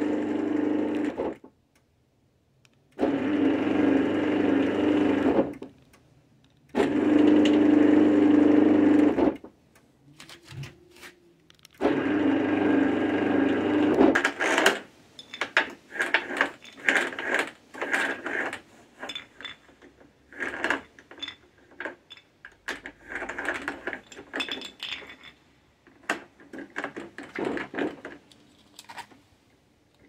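B&D Control-A-Door garage door opener motor running with a steady hum, driving the trolley along its toothed-belt rail, stopping and starting four times in runs of about two to three seconds. From about halfway through, irregular clicks and rattles of the trolley and its release handle being worked by hand.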